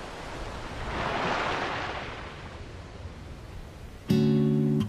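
A soft rush of surf-like noise swells and fades over the first two seconds. About four seconds in, a loud strummed guitar chord starts the background music.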